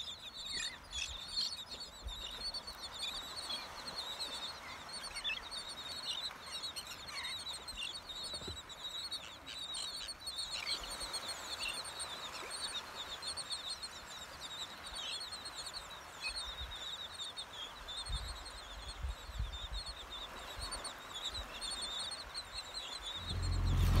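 A large flock of seabirds calling, many short high calls overlapping in a steady chatter, with a few faint low gusts of wind on the microphone.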